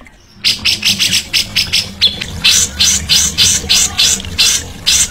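A songbird giving a fast run of harsh, raspy notes, about four or five a second, starting after a brief break at the very beginning; a low steady hum runs underneath.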